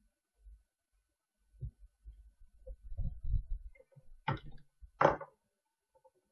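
Desk handling noise from hands working on a breadboard and Arduino board: a run of soft low thumps and knocks, then two sharp clicks about four and five seconds in.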